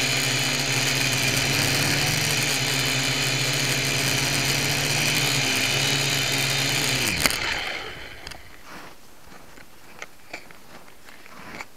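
Syma X1 quadcopter's small electric motors and propellers whining steadily, heard up close from the camera mounted on the craft. About seven seconds in there is a click, and the motors spin down, falling in pitch and fading out. Only faint scattered crunches and ticks follow.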